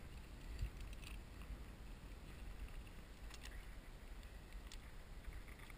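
Wind rumbling on the microphone, with a few faint clicks of climbing gear being handled as an anchor of slings and carabiners is rigged.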